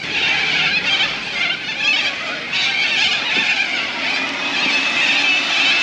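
Cockatoos screeching, a dense continuous din of harsh calls.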